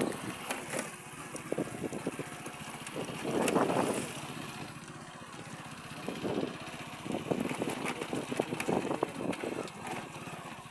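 A small engine running steadily, with indistinct voices calling out over it now and then.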